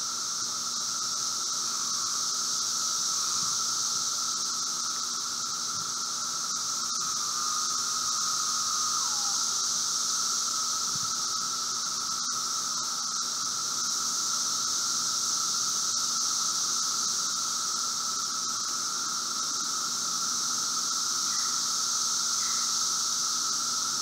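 Chorus of Brood V seventeen-year periodical cicadas, Magicicada septendecim among them: a steady, even drone of many insects calling at once. About eight to nine seconds in, one nearer cicada's call slurs down in pitch at its end.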